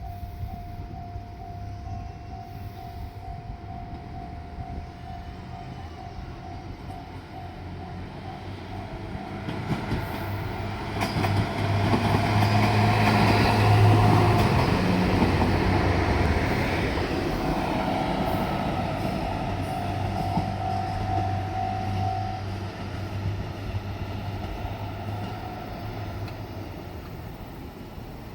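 A diesel railcar train passes over a level crossing. Its engine and wheels grow louder to a peak about halfway through and then fade. Meanwhile the crossing bell rings with a steady, pulsing electronic ding and stops about three-quarters of the way through.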